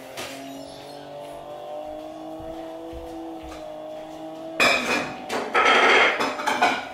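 A steady hum whose pitch slowly rises, then, about two-thirds of the way in, loud irregular bursts of a baby's vocal sounds, squeals and grunts.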